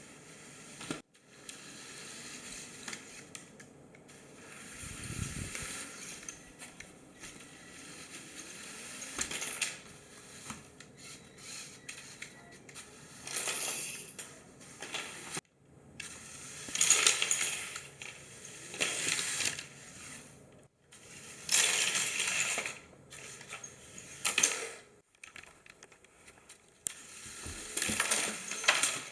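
LEGO Technic RC car driving, its Power Functions motors running and its plastic parts rattling and clattering in a series of separate runs, the loudest in the second half.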